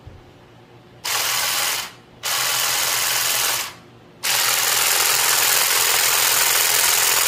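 A Saker 20 V cordless grass shear with its short toothed shear blade fitted, run three times in bursts as the trigger is pressed and released. Each burst is the steady buzz of the small battery motor and the moving blade, and it starts and stops sharply. The last burst is the longest, about three seconds.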